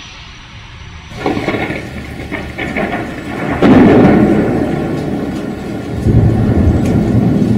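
Thunder rolling over steady rain: the rumble builds from about a second in, swells into a loud clap about three and a half seconds in, and keeps rumbling after it.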